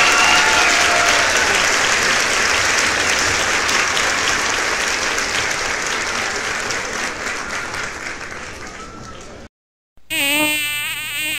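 Crowd applause, slowly fading and then cutting off suddenly about nine and a half seconds in. After a half-second gap a pitched buzzing sound begins.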